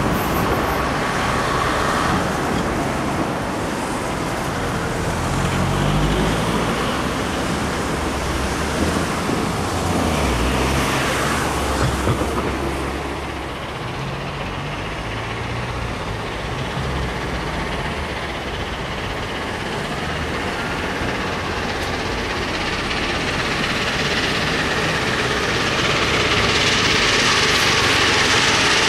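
Steam locomotive 60163 Tornado, a three-cylinder A1 Pacific, approaching with its train. Its sound grows steadily louder and brighter over the last few seconds, over a continuous trackside rumble.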